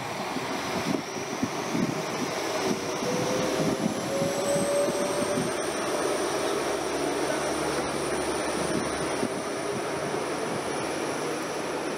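A distant engine running steadily, with a whine that slowly rises in pitch from a few seconds in.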